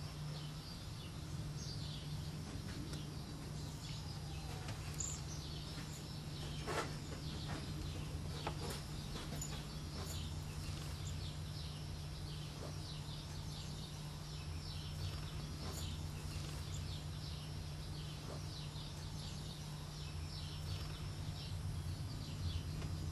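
Cedar waxwings calling: many short, thin, high-pitched calls, more frequent in the second half, over a steady low hum.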